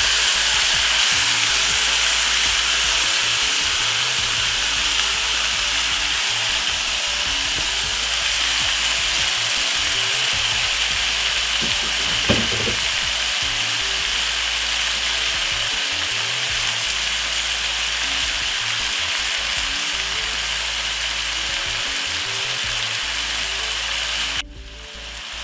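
Marinated chicken pieces sizzling in hot oil in a frying pan with garlic and onion, a steady hiss that slowly eases. There is one brief knock about halfway through, and the sizzle drops sharply near the end.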